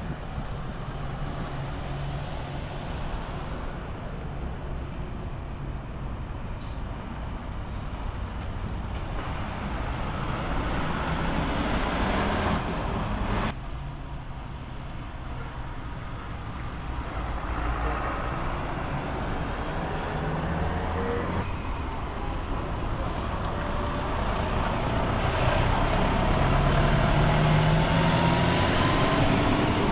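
City buses' diesel engines running as they pull away and drive through the terminal, with the rumble rising and falling. The loudest moment comes near the end, as a bus drives close past with a rising engine whine.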